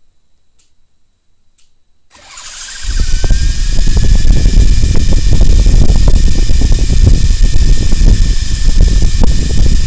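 Electric rotor motors of a home-built MJX F39-based RC helicopter spinning up about two seconds in, with a whine that rises and settles into a steady high tone. A loud low rushing sound from the spinning rotors runs steadily under the whine once it is up to speed.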